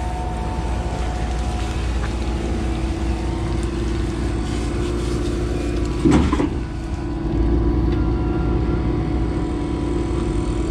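A truck engine running steadily as a low, even hum with a few constant tones over it, and a brief higher-pitched sound about six seconds in.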